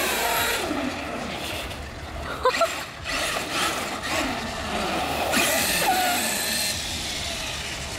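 Large RC monster truck driving on asphalt: its motor whines, rising and falling in pitch with the throttle, over tyre noise. It is loudest in two spurts, about half a second in and again from about five to seven seconds.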